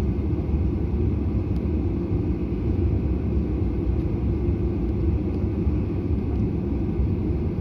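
Steady low rumble of an airliner's engines and airframe heard from inside the cabin, holding an even level throughout.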